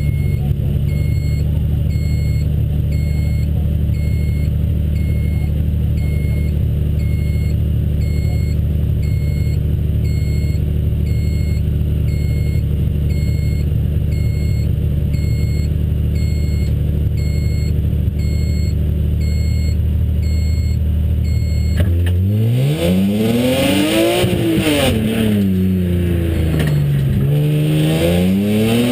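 BMW Z3 M race car's engine idling steadily, then, about three-quarters of the way through, revved up and let fall twice.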